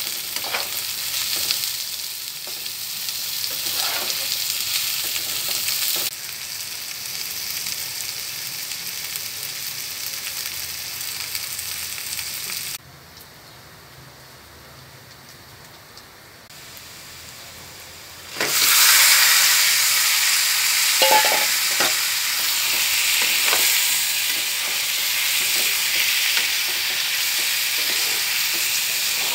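Sliced onions sizzling in hot oil in a pan as a spatula stirs them, with small scraping clicks. After a quieter stretch, a louder sizzle starts suddenly about two-thirds of the way through as marinated chicken pieces fry and are stirred.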